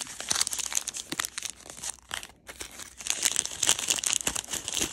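Shiny plastic wrappers from a 5 Surprise Mini Brands capsule being handled and pulled open, with dense rapid crinkling and some tearing. There is a short lull a little after two seconds in, then the crinkling is louder again.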